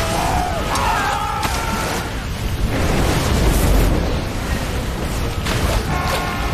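Film action sound effects: booming blasts of bending fire and earth, loudest as a deep rumble about three and a half seconds in, with pitched cries or score tones over them early on and again near the end.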